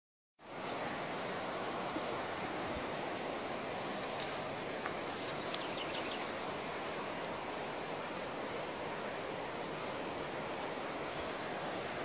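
River water rushing steadily over shallow rocky rapids, with an insect's high, steady trill running over it.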